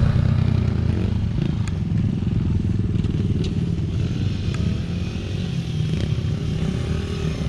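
Small single-cylinder four-stroke pit bike engine running steadily at low revs, a low rumble with a few light ticks over it.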